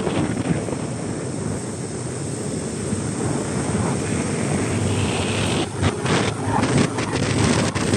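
Wind rushing over the microphone of a motor scooter on the move, with engine and road noise underneath. From about six seconds in, a run of sharp crackles and knocks on the microphone.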